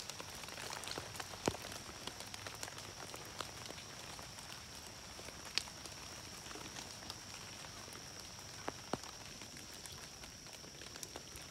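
Footsteps through wet leaf litter and flattened corn plants, with scattered light rustles and snaps, over a steady high-pitched insect drone.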